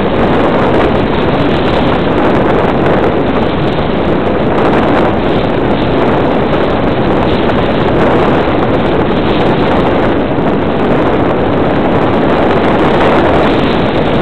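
Steady, loud rush of airflow buffeting the microphone of a camera carried in flight, with no clear engine or motor tone standing out.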